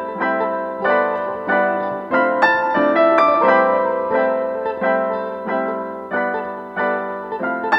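Background music: a piano playing struck notes that ring and fade, one after another at an even pace.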